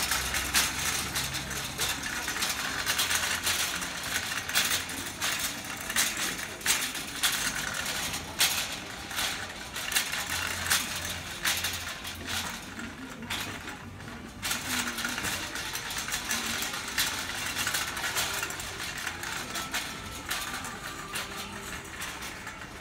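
Metal wire shopping cart rattling and clicking as it is pushed along a store floor, over a steady rolling rumble. The rattle eases off briefly about halfway through.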